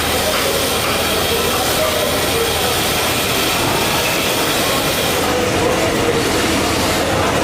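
Steady, loud machinery noise with a faint wavering whine, unbroken throughout and with no distinct strokes or rhythm.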